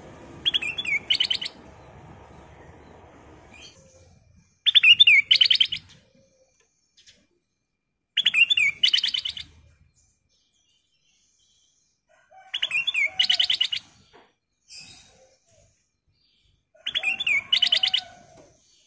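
Ruby-throated bulbul (kutilang emas) singing: five short phrases about four seconds apart, each a warbled whistle followed by a fast trill.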